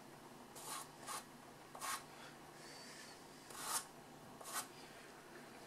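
Purple pastel stick scratching across pastel paper in about five short, separate strokes as the onion shape is hatched in.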